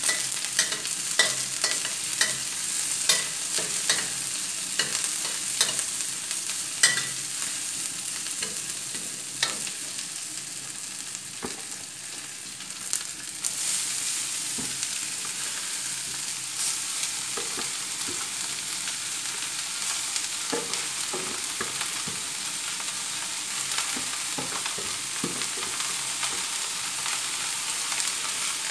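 Stir-frying in a metal wok: a steady sizzle, with sharp clicks and scrapes of the spatula against the pan. About halfway through, the sizzle jumps louder as handfuls of shredded vegetable go into the hot oil. Stirring clicks continue after that.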